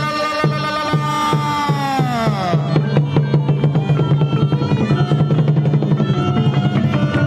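Traditional Cambodian ensemble music accompanying a shadow-puppet play. Regular drum strokes quicken into a fast drum roll about two and a half seconds in, while a held melody line bends down in pitch just before the roll and then drops away.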